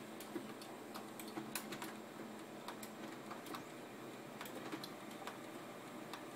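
Samsung CLP-315 colour laser printer starting up after being switched back on: faint, irregular clicks and ticks, a few a second, over a low steady hum.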